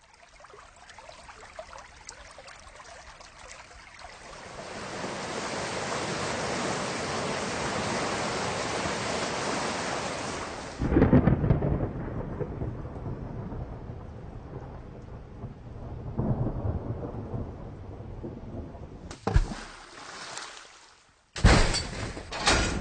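Thunderstorm: steady rain that swells about four seconds in, then a loud thunderclap about halfway through with a long rolling rumble, and smaller rumbles after it, spatialised for headphone listening. Near the end the rain stops and a loud, sharp crash begins.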